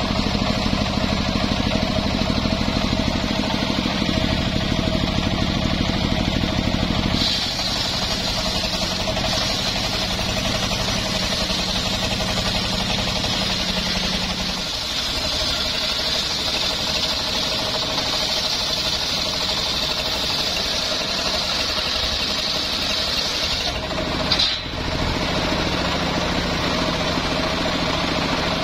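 Engine-driven circular sawmill blade running steadily through an old johar hardwood beam, the engine labouring under the cutting load. The sound shifts about seven seconds in, with a brief dip near the end.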